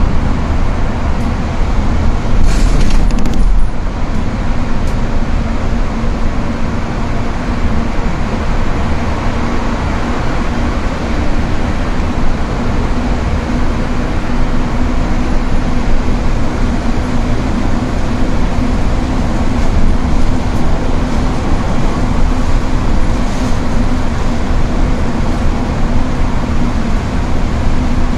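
Steady road noise heard inside a moving vehicle on a wet motorway: tyres hissing on wet asphalt over a constant engine drone. A louder rush comes about three seconds in.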